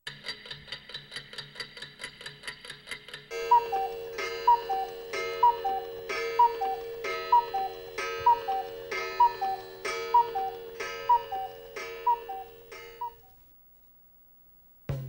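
Stopwatch ticking, the well-known TV news-magazine stopwatch sound: light, fast ticks at about five a second for the first three seconds, then louder, slower ticks about two a second, each with a short ringing tone. It fades out about 13 seconds in.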